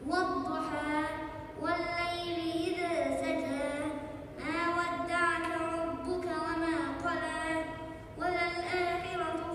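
A boy chanting a melodic Qur'an recitation in Arabic, in long held, ornamented phrases with short pauses for breath in between.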